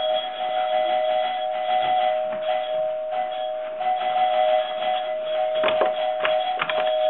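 Electric doorbell buzzing continuously as the button is held down, one steady tone with no breaks. A few sharp thumps come about six seconds in.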